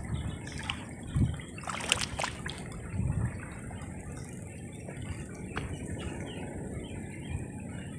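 Outdoor ambience at the water's edge: a faint trickle of water, with a few sharp clicks and soft knocks in the first three seconds.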